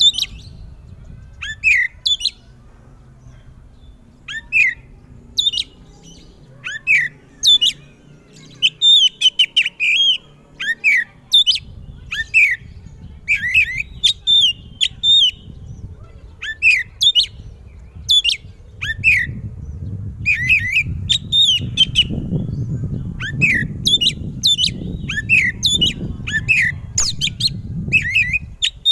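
Oriental magpie-robin (kacer) singing loudly: a fast, continuous run of short, sharp whistled notes and phrases, one after another. A low rumbling noise sits underneath and grows louder in the second half.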